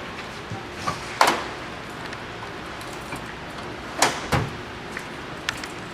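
A few separate metal knocks and clunks from the removed brake caliper and its bolts being handled. The sharpest come about a second in and again about four seconds in.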